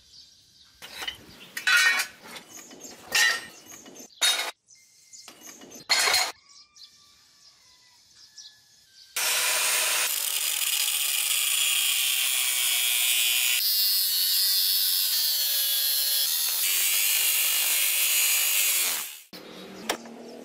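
A handful of sharp knocks, then an angle grinder with a thin cut-off disc cutting steadily into the hardened steel outer race of a rusted bearing for about ten seconds. Its tone changes twice as the disc bites, and it stops abruptly.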